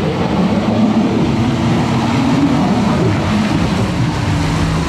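Toyota Land Cruiser engine running hard under load, its pitch rising and falling as the throttle changes.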